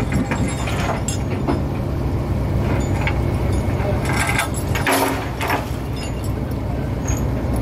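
A fishing boat's engine running steadily, a low rumble, with scattered knocks and clinks on top.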